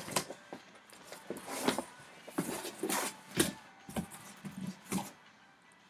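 Cardboard and paper handling: a run of rustles, scrapes and light knocks as a shoe box is lifted out of a cardboard shipping carton, with sharper knocks near the middle.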